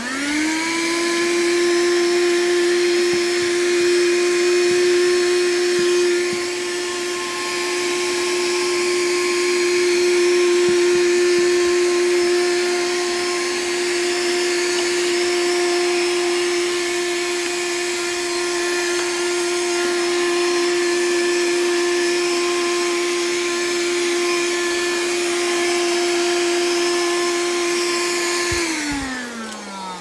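Tower cordless handheld vacuum cleaner switched on, its motor spinning up to a steady whine and running while it cleans the edge of a carpeted stair. Near the end it is switched off and the whine falls in pitch as the motor winds down.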